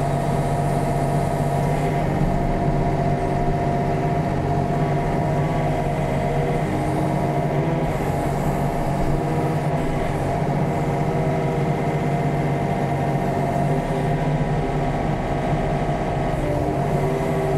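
Yanmar ViO35 mini excavator's diesel engine running steadily while the hydraulic boom and bucket dig and swing, heard from the operator's seat.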